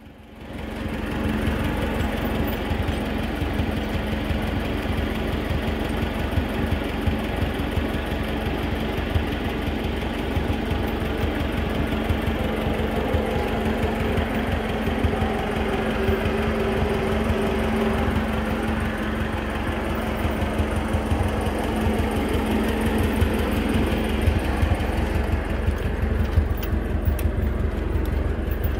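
Ferguson TO35 tractor's four-cylinder engine idling steadily, coming up to full level about a second in.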